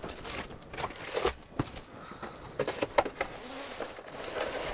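Cardboard packing being pulled out of a shipping box and a hard plastic camcorder case handled: scattered rustles, scrapes and light knocks.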